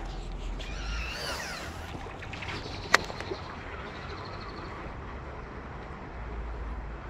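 Steady low outdoor rumble with a brief bird call about a second in, and a single sharp click about three seconds in from the fishing rod and reel being handled.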